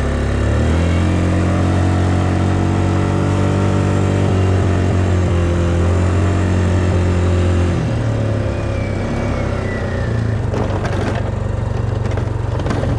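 2007 Yamaha Kodiak 350 ATV's single-cylinder engine running as it plows snow. Its pitch steps up just after the start, holds steady, then drops about eight seconds in. Near the end the plow blade shoves into a snowbank with crunching scrapes.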